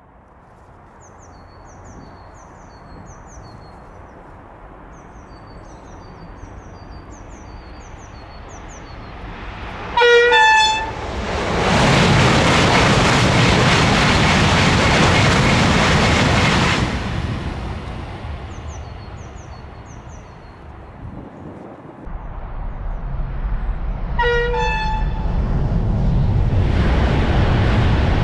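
Two Eurostar high-speed trains passing at speed, each sounding a brief two-note horn, a lower note then a higher one, as it comes. The first rushes past loudest for about five seconds, the second builds up from about two-thirds of the way in and is still passing at the end. Birds chirp in the quieter stretches.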